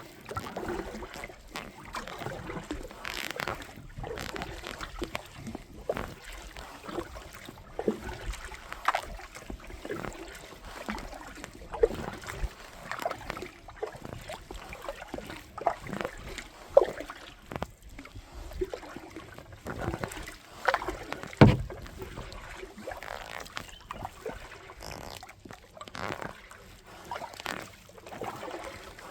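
Water splashing and dripping around a kayak on a river: a run of small, irregular splashes over a light wash of moving water.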